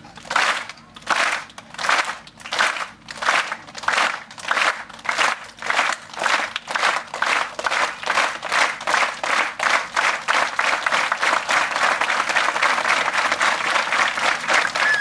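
Circus audience clapping in unison, slow at first and steadily speeding up until the claps blur into continuous applause near the end.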